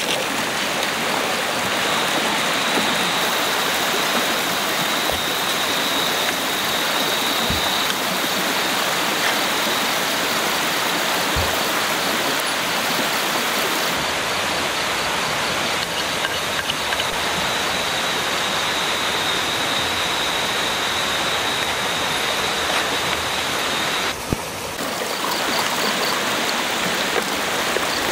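Steady rush of a waterfall and its stream. A thin, high, steady tone sits above it, and a few soft knocks come through.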